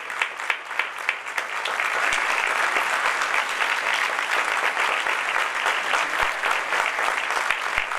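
Theatre audience applauding. At first the clapping is in unison at about three claps a second; about two seconds in it breaks into dense, louder applause.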